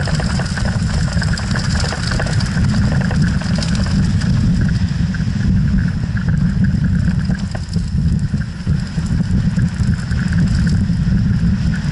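Wind buffeting an action camera's microphone and the rumble and rattle of a mountain bike's tyres rolling fast down a loose, stony dirt trail.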